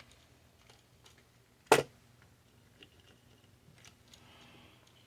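Quiet handling of a small plastic remote-control buggy: faint small ticks and one sharp plastic click a little under two seconds in.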